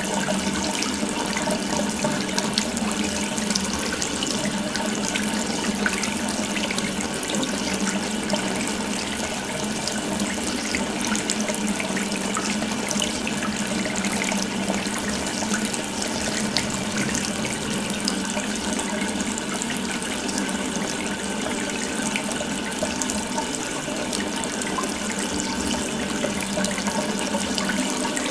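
Water running steadily from an open tap: a continuous, even splashing rush.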